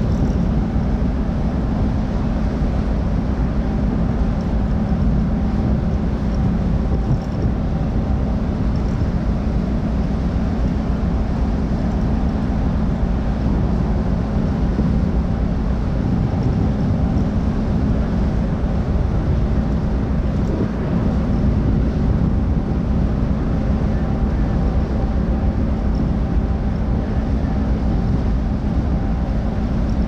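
Ship's engines and machinery droning steadily, heard on board a ferry, with a constant low hum and wind on the microphone.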